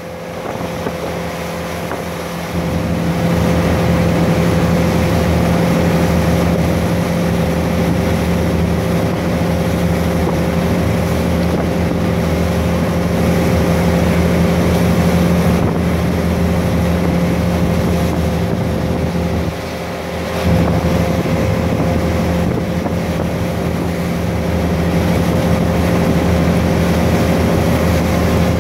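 Towing boat's engine running steadily, a constant drone with the rushing churn of the wake and wind on the microphone. It gets louder about two and a half seconds in and dips briefly around twenty seconds.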